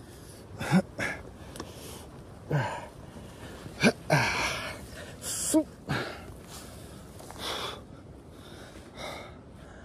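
A man breathing hard, with short grunts, gasps and sharp exhales of effort about every second, some voiced and falling in pitch, as he clambers down a steep, muddy drop.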